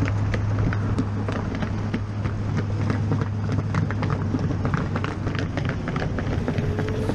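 Motorcycle riding at a steady pace, heard from the rider's helmet camera: a steady low engine drone under road and wind noise, with many short ticks.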